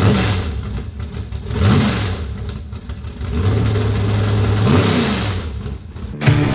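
Race car engine revving, its pitch rising and falling several times with a steady stretch in between. Rock music cuts in near the end.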